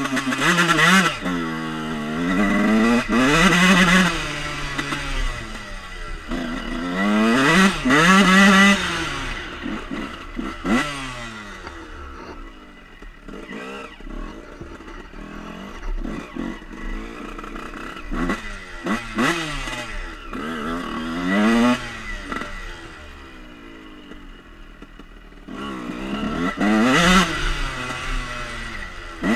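Dirt bike engine accelerating in repeated bursts, its pitch climbing and falling back with each gear change, loudest in the first few seconds and again near the end, with a quieter, steadier stretch in the middle.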